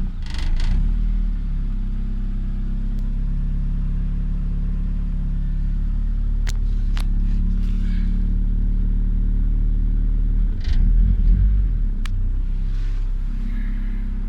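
Honda B20 VTEC engine idling steadily just after starting, its no-start cured by reconnecting a cut power wire to the distributor. The engine note surges briefly louder about ten and a half seconds in, and there are a few light clicks.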